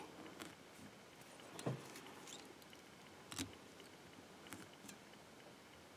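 Near silence with a few faint, scattered ticks of hands and thread working at a fly-tying vise as the thread is tied off behind the head of the fly; two of them, a couple of seconds apart, stand out a little.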